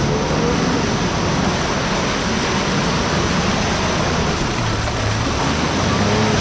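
Four-wheel drive pushing through deep water, with a steady rush and splash of water over the engine running underneath.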